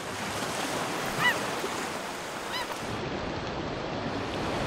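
Harbour ambience: a steady wash of water and wind noise, with two short bird calls about one and two and a half seconds in.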